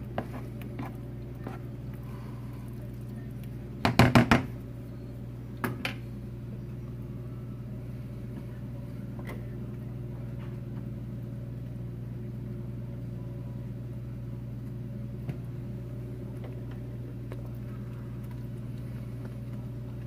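Steady low electrical hum in a kitchen, with a spoon knocking against a metal skillet of simmering mac and cheese: a quick cluster of four knocks about four seconds in and two lighter ones a couple of seconds later.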